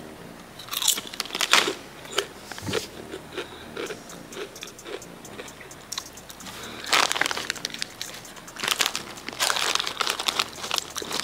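Salt and vinegar potato chips crunching as they are bitten and chewed, in short bouts with pauses between. The chip bag crinkles as a hand reaches into it again near the end.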